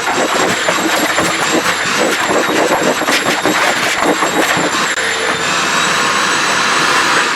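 AEG VX4 bagged canister vacuum cleaner running on carpet at power setting 1.5, its motor giving a steady high whine. A rapid crackle of clicks runs over it as the nozzle is worked across the carpet, and it settles to a steadier run after about five seconds.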